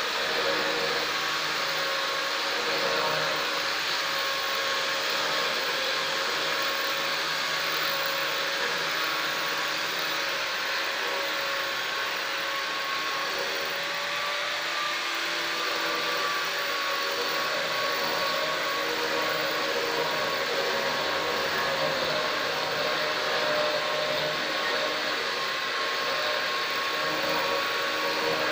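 Handheld electric angle grinder running steadily with its disc against the edge of a granite slab, molding and finishing the edge. It gives a continuous motor whine over a grinding hiss, and its pitch wavers slightly about halfway through.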